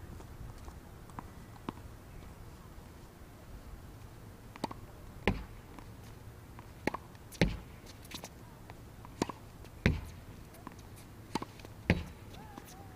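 Tennis ball hit back and forth against a practice backboard with a racket. Sharp hits come about every two and a half seconds, with lighter ball bounces on the hard court between them. The rally starts about five seconds in.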